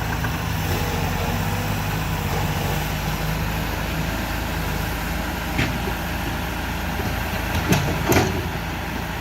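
Mini bulldozer's engine running steadily, with three sharp knocks in the last few seconds.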